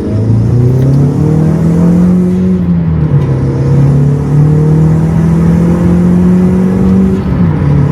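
Turbocharged car engine breathing through a short ram intake while accelerating. Its note climbs for about two seconds and drops about three seconds in. It then climbs slowly and dips again near the end.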